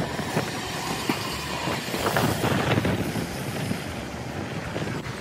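Streetcar running on the street track, with a steady rumble of wheels on rail and scattered clicks, loudest about two seconds in.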